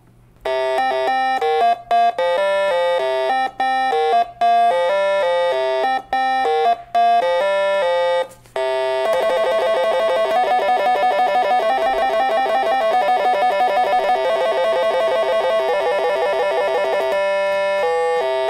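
OKAY Synth, a small DIY analog synthesizer kit, being played by hand. First comes a tune of short separate notes. From about nine seconds in, it plays a continuous fast-wavering run of notes for about eight seconds, and then separate notes again.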